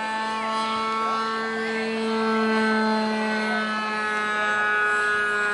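Radio-controlled model airplane's engine running steadily in flight, overhead, holding one pitch and growing louder toward the middle.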